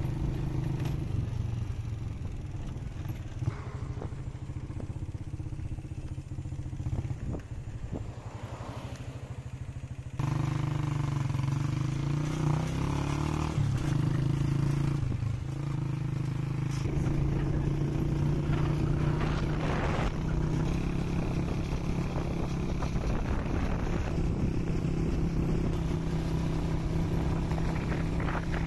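A vehicle's engine running steadily, heard from on board while driving, with a hum that wavers in pitch; about ten seconds in it gets abruptly louder.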